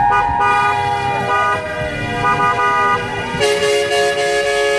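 Several horns honking at once in a parade, with short repeated toots and then one long held blast starting about three and a half seconds in.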